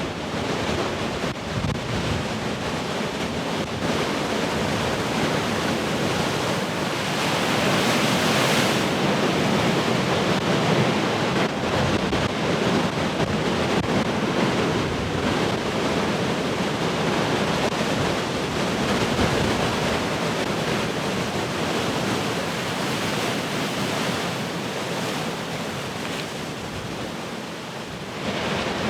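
Heavy ocean surf: a continuous wash of breaking waves, swelling to a loud crash near a third of the way in, easing off, then another wave breaking near the end, with wind noise on the microphone.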